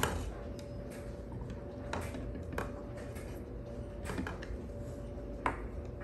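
Samoyed puppy drinking from the trough of a plastic portable dog water bottle, with a few scattered light clicks and taps of the plastic. A faint steady hum runs underneath.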